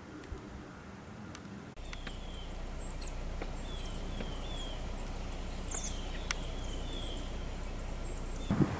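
Birds chirping in short, repeated, downward-sliding calls over steady low outdoor background noise, with a few sharp clicks; the background changes abruptly about two seconds in.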